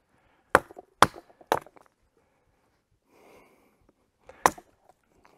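A Joker Nomad knife being batoned through beech wood to split it for firewood: three sharp knocks on the blade's spine about half a second apart, then one more near the end.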